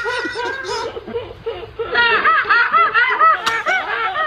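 People laughing hard in quick repeated 'ha-ha' pulses, turning higher-pitched and louder about two seconds in.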